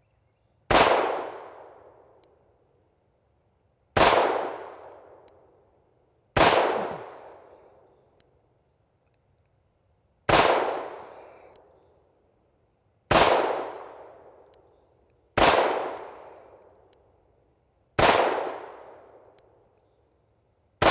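Armscor AL22M .22 Magnum revolver fired double action, one deliberate shot at a time. There are eight sharp cracks spaced about two to four seconds apart, the last at the very end, and each dies away over about a second.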